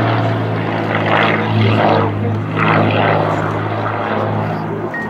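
Aerobatic single-engine propeller plane's engine and propeller running with a steady low drone as it climbs vertically. A rushing noise swells and fades a few times over it.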